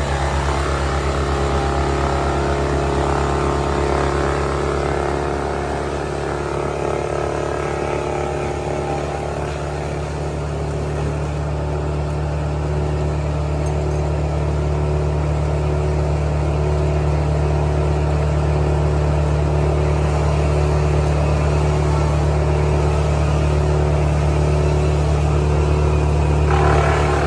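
A large engine running steadily at a constant, low speed. Near the end a brief, brighter noise rises over it.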